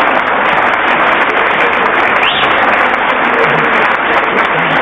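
Studio audience applauding steadily after a joke, a dense, even clatter of clapping that holds at one level throughout.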